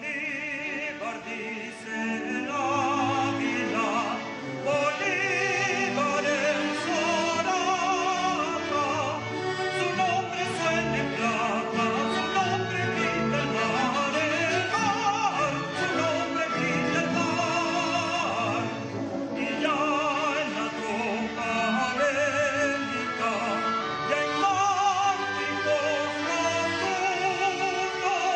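Operatic singing with strong vibrato over a symphony orchestra, part of a classical symphonic-choral work performed live.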